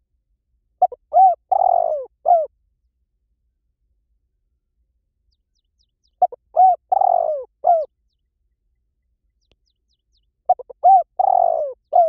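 Spotted dove cooing: three phrases about four to five seconds apart. Each phrase is a couple of short notes, a longer falling coo and a short closing note.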